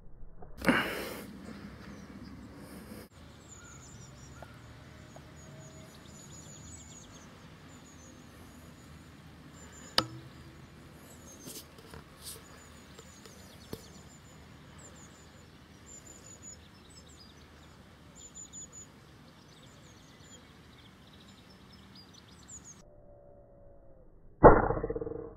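Weihrauch HW100 pre-charged pneumatic air rifle firing: one shot about a second in and another near the end, each with a short decaying tail, and a single sharp crack about ten seconds in. Small birds chirp in between.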